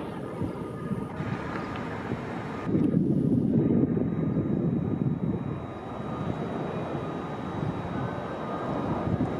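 Steady low rumble of a jet airliner's engines passing over, louder for about a second around three seconds in.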